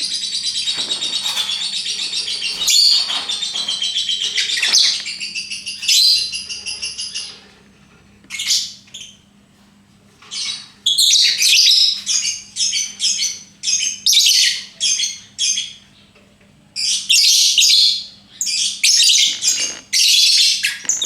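Lovebird chattering: a continuous rapid high-pitched chatter for about the first seven seconds, the long song that keepers call ngekek, then a quieter stretch broken by many short, sharp chirps in quick runs.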